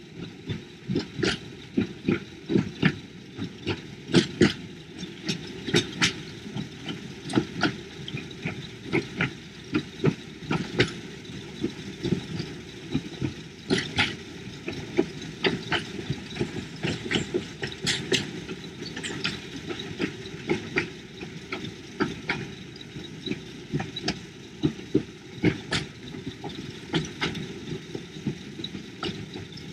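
Hythe Pier Railway's small electric train running along the pier track: a low running rumble with sharp, irregular clicks and clacks from the wheels on the rails, several a second.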